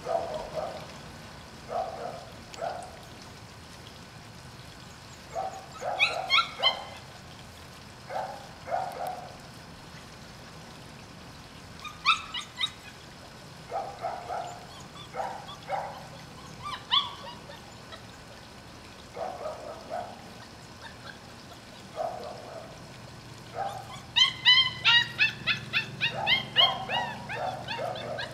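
Month-old Šarplaninac puppies whining and yipping in short, repeated cries, some low and some high-pitched. Near the end comes a quick run of high yips.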